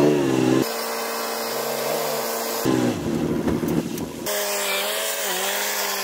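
Diesel engines of heavy earthmoving machinery running, heard in short stretches that cut abruptly from one to the next every second or two. In the last stretch the engine note dips and then slowly falls.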